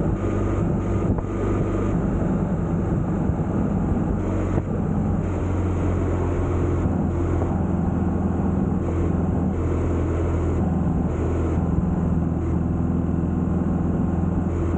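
Motorcycle engine running at a steady cruise, its low hum holding even with slight rises and falls in pitch, over a constant rush of wind and road noise.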